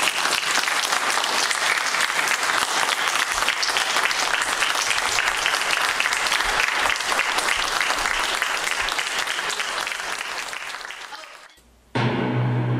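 Audience applauding, a dense, even clatter of many hands that fades away about eleven seconds in. After a brief gap, music starts near the end.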